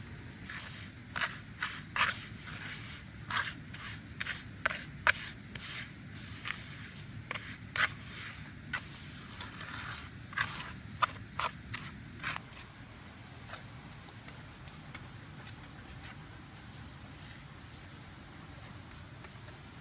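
Irregular scraping and clicking, like hand work with tools or materials, with sharp strokes at uneven intervals for about the first twelve seconds. After that only a steady low background rumble remains.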